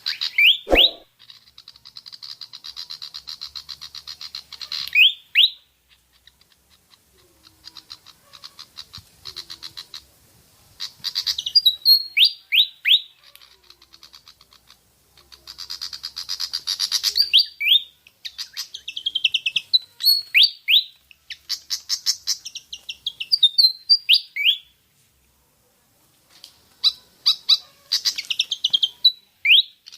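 Pied fantail (Rhipidura javanica) song used as a lure call: bursts of rapid, high chattering notes mixed with quick sharp whistled sweeps, repeated with short pauses between phrases. A single low knock sounds about a second in.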